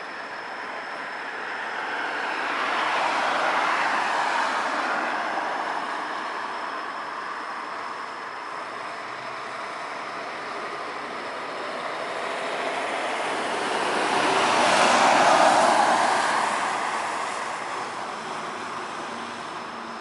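Two cars passing on a wet road after rain, each a swell of tyre hiss that rises and fades away. The first passes a few seconds in, and the second, louder one passes about eleven seconds later.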